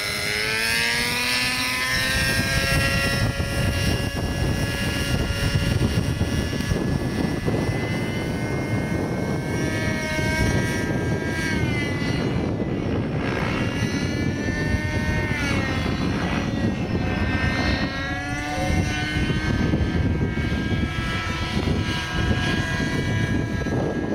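Nitro-engined radio-control helicopter in flight: a steady high engine and rotor whine. Its pitch climbs in the first couple of seconds, then dips and recovers several times as the helicopter manoeuvres.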